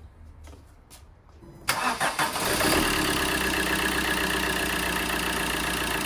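Peugeot 1.3 HDi diesel engine cranking briefly and starting about two seconds in, then idling steadily. It is running with its injector return lines connected to a leak-off test kit, to compare how much fuel each injector leaks back.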